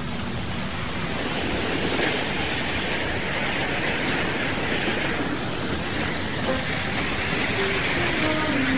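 A steady rushing, rumbling drone from the soundtrack that slowly swells. A few soft low musical notes enter near the end.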